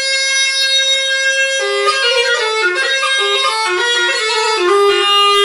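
Music played on a single reedy wind instrument. It holds one long note, then about one and a half seconds in breaks into a quick melody of short stepping notes, and settles on another held note near the end.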